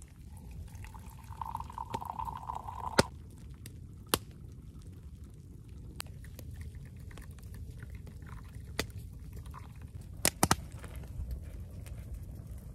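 Tea poured from a steel kettle into a glass, a steady pouring sound that stops about three seconds in. Sharp pops and snaps from the campfire follow, the loudest right as the pour ends and a close pair about ten seconds in.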